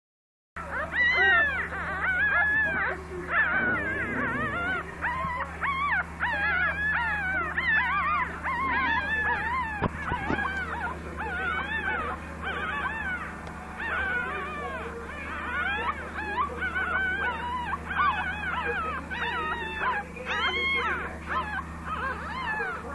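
Several newborn puppies squeaking and whimpering, many short, high cries rising and falling and overlapping almost without pause, over a steady low hum.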